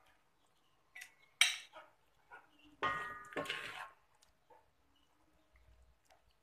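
Metal spoon clinking and scraping against a wok: two short ringing clinks about a second in, then a louder ringing scrape a little before the three-second mark.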